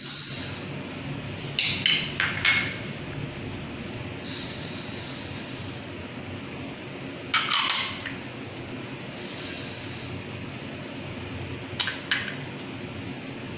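Dry split lentils poured into a glass bowl three times, the grains rattling and hissing against the glass, with sharp clinks of glass between the pours.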